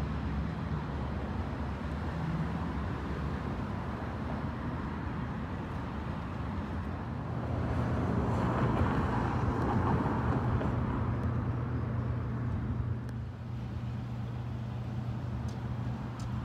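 Street traffic: a vehicle engine runs with a steady low hum. A passing car's broader rush swells about eight seconds in and fades a few seconds later.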